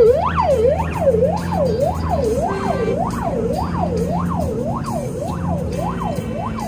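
Police siren yelping, its pitch sweeping sharply up and down about twice a second, over a low steady hum.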